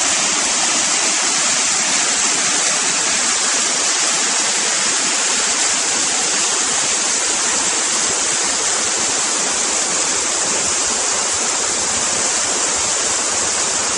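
Irrigation water rushing steadily down a waste gate and along a ditch, a continuous hiss: excess water being spilled back toward the canal.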